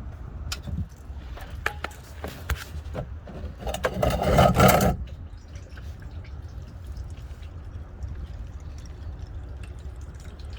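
Engine oil draining out of a Toyota 4Runner's oil pan once the drain bolt is pulled: a few clicks and knocks, a loud splashing rush about four seconds in, then a fainter steady trickle and dripping.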